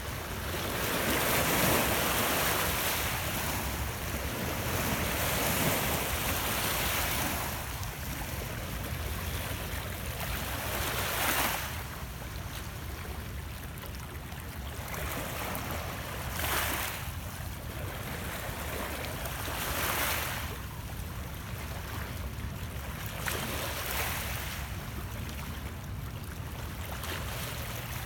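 Small lake waves lapping and washing over shoreline rocks, swelling into a louder splash every few seconds over a steady low background rumble.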